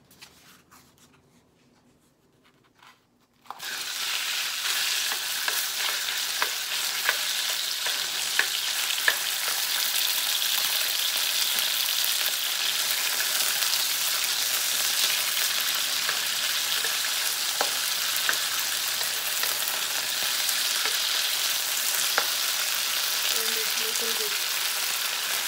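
Beef strips dropped into hot olive oil in a nonstick wok, setting off a sudden loud sizzle about three and a half seconds in that then carries on steadily. Scattered clicks of a spatula turning the meat sound through the sizzle.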